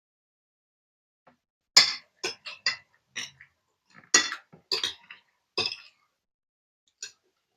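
Metal spoon clinking and scraping against a plate as food is scooped: a quick run of about a dozen clinks in the middle and one more near the end.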